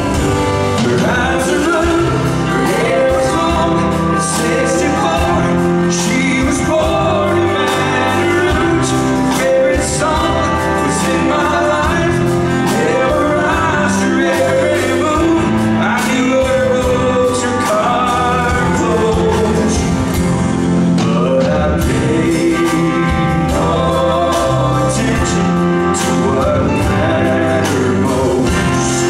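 A man singing with a band accompanying him.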